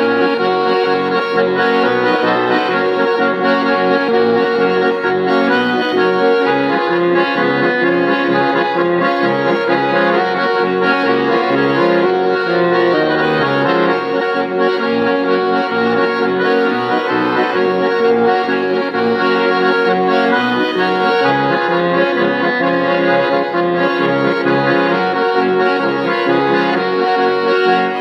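Chromatic button accordion playing a Swiss folk tune, with chords and melody sounding steadily throughout.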